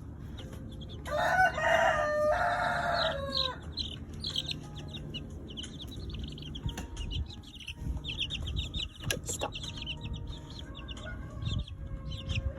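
Chicks peeping rapidly and continuously. A loud, harsh chicken call in two parts starts about a second in and lasts about two and a half seconds.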